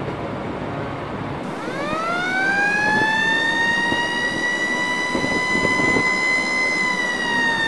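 A siren winds up: a wailing tone rises steeply in pitch about a second and a half in, then holds steady and sags slightly near the end, over a low rumbling noise.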